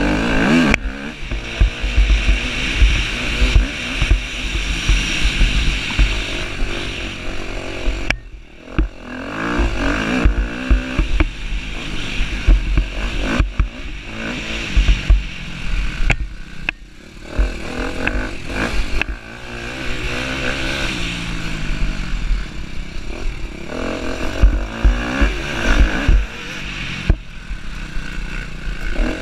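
Husqvarna TC250 motocross bike engine revving hard and falling back again and again as the rider rides the track, with brief throttle drops about eight and sixteen seconds in. Wind rumbles heavily on the bike-mounted microphone.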